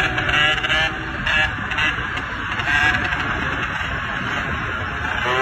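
Dirt bike engine running while the bike is held in a wheelie, its note rising and falling with the throttle.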